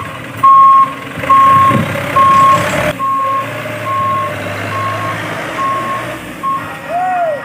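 Warning beeper of an RC MAN dump truck sounding in even beeps, a little faster than once a second, loud at first and fading from about three seconds in. At that point a steady motor whine starts as the tipper bed begins to lift.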